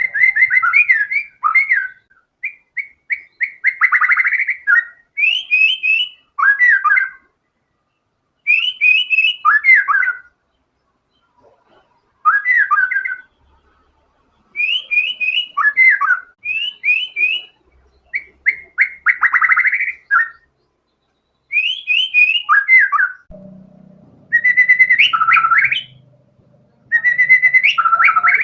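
White-rumped shama (murai batu) in full song: loud bursts of rapid whistled phrases, each a second or two long, separated by short pauses, the varied phrases carrying the mimicked material a trained songbird is taught. A faint low hum comes in about two-thirds of the way through.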